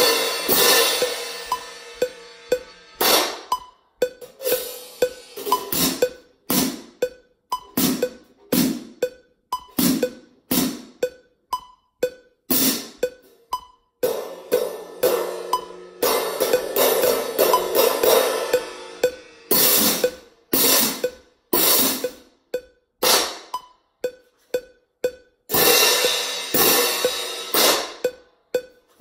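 A pair of marching crash cymbals struck by hand in a run of rhythmic strokes: some crashes left to ring, others choked off short. Around the middle comes a longer stretch of sustained ringing. A faint steady ticking runs under the strokes.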